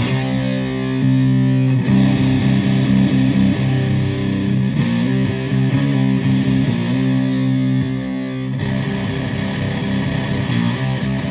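Electric guitar in drop C tuning played through a Russian Big Muff fuzz pedal, with blend and octave controls, into a Fender Twin Reverb-style amp. It is a heavily distorted riff of held, thick notes, with the chord changing every couple of seconds.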